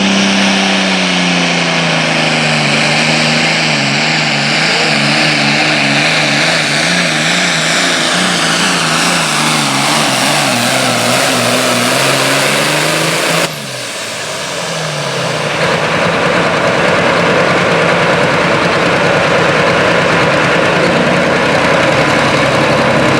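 Super Farm pulling tractor's turbocharged diesel engine at full throttle under load, its pitch sagging and wavering as it bogs down. About halfway through it cuts off suddenly, and engine noise then builds back up and holds steady.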